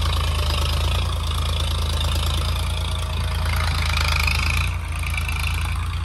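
Tractor's diesel engine running steadily as it pulls a tined cultivator through the field.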